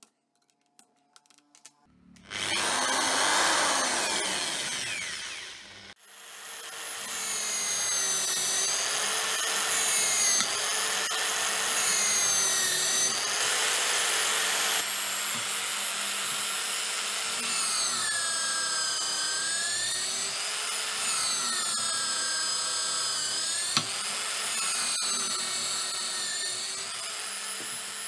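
A few faint clicks as the bit is set in the chuck, then an electric hand drill mounted in a drill press stand runs and bores holes in a wooden board. Its motor whine dips in pitch again and again as the bit is fed into the wood and rises as the load comes off.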